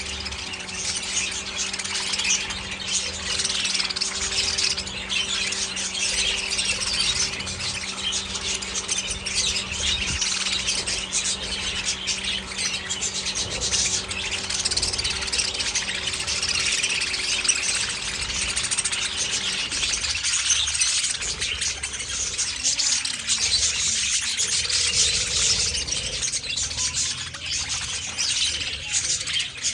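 A large colony of budgerigars chirping, chattering and squawking continuously, many birds at once. A steady low hum underneath stops about two-thirds of the way through.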